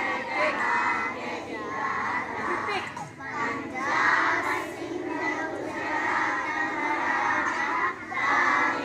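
A large group of young children singing a prayer together in chorus, in phrases with brief breaks.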